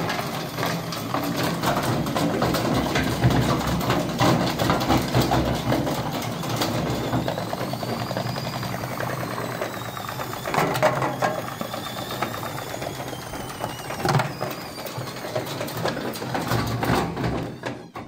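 Indesit front-loading washing machine spinning with a heavy, unbalanced load, a brick among the clothes, which bangs and clatters against the drum in a continuous irregular racket while the cabinet rattles. A faint whine rises and falls in pitch through the middle.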